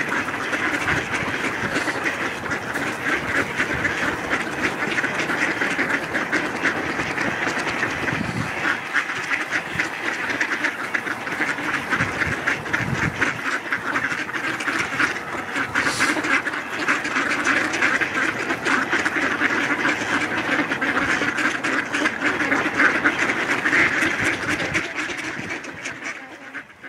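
A flock of ducks quacking in a dense, unbroken chorus, fading out near the end.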